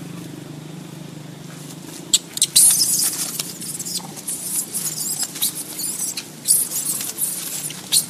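Monkeys scuffling in dry leaf litter: from about two seconds in, a run of sharp clicks and hissy rustling bursts over a low steady hum.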